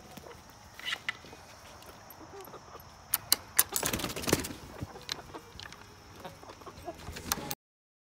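A wooden screen-door gate to a chicken run knocking and rattling as it is handled, with a cluster of sharp knocks in the middle, footsteps on leaf-strewn ground and chickens clucking. The sound cuts off abruptly near the end.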